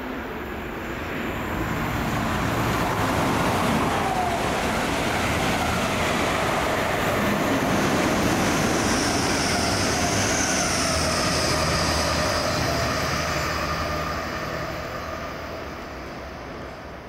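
Passenger train passing through the station: a steady rush of wheels on rail and running gear that swells over the first couple of seconds, holds, then fades away near the end, with a few faint whining tones sliding slowly down in pitch.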